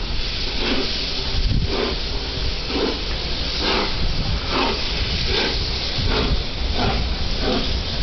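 Peppercorn A1 Pacific steam locomotive's three-cylinder exhaust beating slowly and unevenly as she starts away under the load of a heavy train, heard from a carriage well back in the train. The beats come about one to two a second over a steady hiss and rumble.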